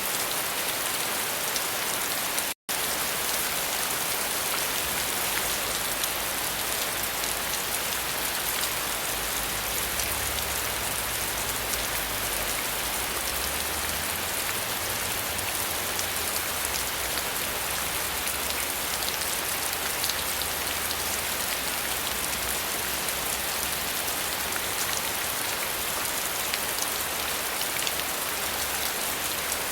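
Steady heavy rain: a dense, even hiss of drops with fine ticks of individual drops hitting a surface. About two and a half seconds in it cuts out to silence for a split second, then carries on unchanged.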